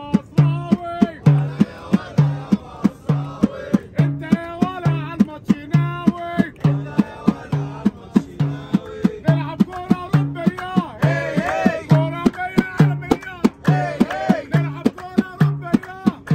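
Large hand-held frame drum with a wooden frame beaten in a steady beat, a deep stroke about every three-quarters of a second, under men singing a chant.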